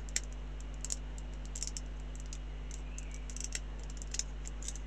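Light, irregular clicks and taps of small plastic model-kit parts handled in the fingers as a part is tried for fit, over a steady low electrical hum.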